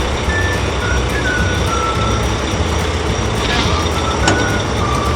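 Animated heavy construction vehicle's engine running steadily with a low rumble, with a single sharp click a little over four seconds in.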